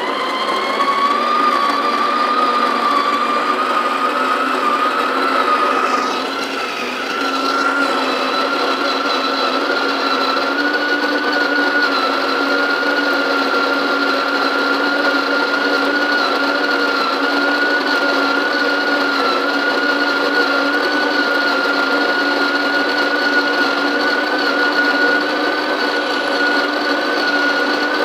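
SHARDOR electric conical burr coffee grinder running as its stainless steel burrs grind whole coffee beans from the hopper, dosing for six cups at a medium, drip-range grind setting. A steady motor whine rises slightly in pitch over the first several seconds and dips briefly in loudness about six seconds in.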